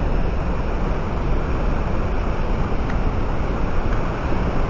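Wind buffeting the microphone: a steady rushing noise with an unsteady low rumble beneath it.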